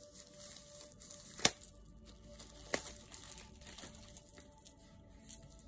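Crinkling of clear plastic wrap and rustling of a spiral-bound paper calendar being handled, with two sharp clicks, one about a second and a half in and one near three seconds in.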